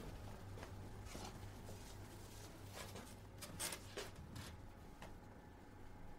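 Faint low hum with scattered soft clicks and rustles; no music is heard.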